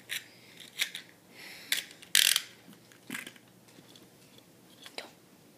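Beyblade tops and launchers being fitted together: a string of separate plastic clicks and short ratcheting rasps, the loudest a rasp about two seconds in.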